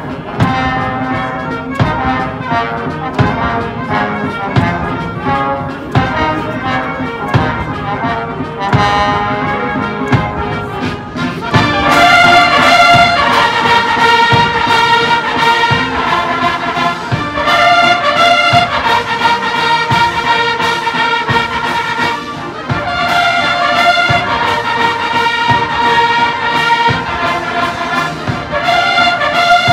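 Massed military bands and bugles playing a march: brass over a regular drum beat. About twelve seconds in, the full brass comes in louder with held chords.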